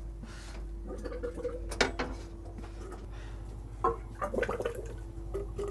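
Galley work sounds: scattered clinks and knocks of pots and utensils and a brief splash of water, over a steady low hum.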